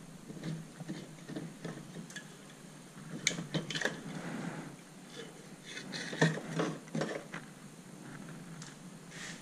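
Clicks, knocks and scraping of a power brake booster being handled by hand and worked out of a car's engine bay, with the sharpest knock a little past the middle.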